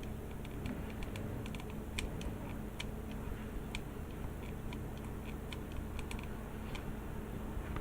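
Scattered small plastic clicks and taps as model kit parts and wiring are handled and pushed into place, over a steady low room hum.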